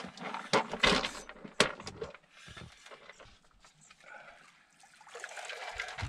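Several sharp knocks and clatter from gear being handled on a small fishing boat, loudest in the first two seconds, then quieter rubbing and handling noise.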